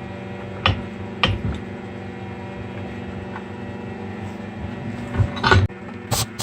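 A few sharp metallic clinks and knocks of steel chain lengths being handled: two about a second apart near the start and a cluster near the end, over a steady electrical hum.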